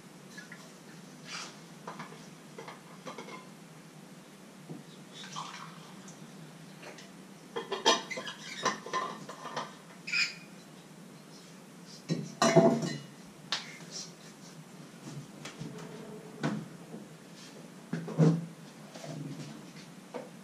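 Kitchen containers, dishes and utensils clinking and knocking as they are handled on a counter, in scattered irregular strokes, with the loudest clatters about eight and twelve and a half seconds in.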